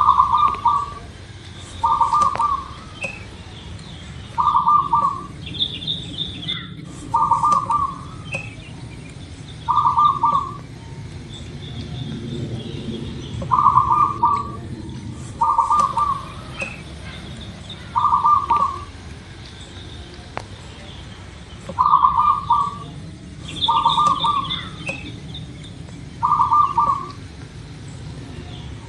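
Zebra dove (local perkutut) cooing over and over, a short trilled coo about every two seconds. Fainter, higher chirps come in a few times.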